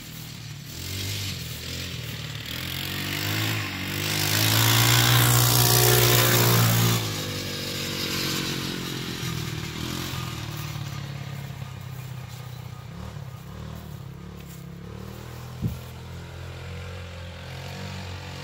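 TaoTao 150cc four-stroke single-cylinder ATV engine running, revved up for about three seconds around four seconds in, then dropping back to a lower, steady speed. A single sharp knock near the end.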